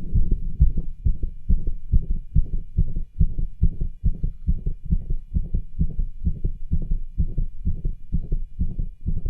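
Heart sounds through a cardiology stethoscope: a quick, regular lub-dub, made stronger by exertion, with rubs and murmurs audible between the beats.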